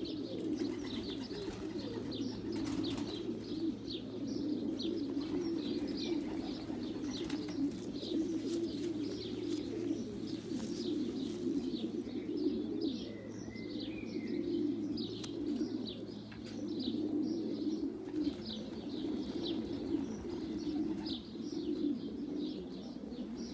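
Pigeons cooing, many at once, in a steady unbroken murmur, with small birds chirping quickly and repeatedly over the top.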